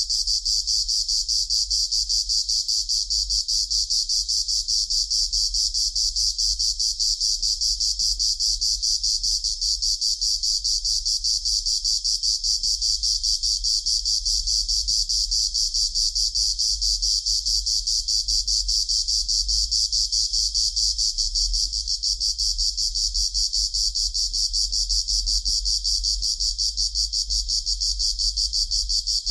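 Cicadas chorusing in a continuous, rapidly pulsing high-pitched buzz that holds steady throughout, high-pass filtered.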